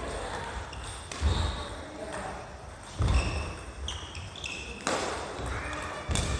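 A badminton rally on a wooden gym floor: several sharp racket strikes on the shuttlecock, heavy thuds of footfalls and lunges, and short high squeaks of court shoes.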